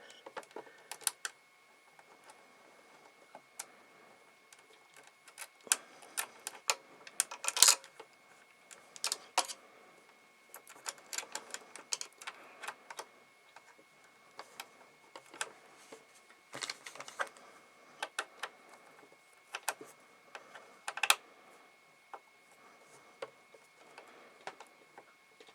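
Irregular small clicks and taps of metal and plastic parts as a universal presser-foot adapter is fitted onto a PFAFF sewing machine's presser bar, with one louder click about eight seconds in.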